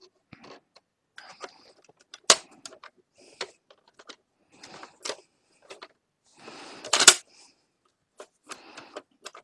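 Plastic clicks and knocks from a flat screwdriver prying open the back cover of an Epson PictureMate printer's case, with a scraping rustle that ends in the loudest click about seven seconds in.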